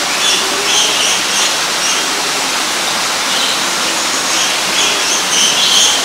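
Steady rush of running water, with small birds giving a scattering of short, high chirps over it.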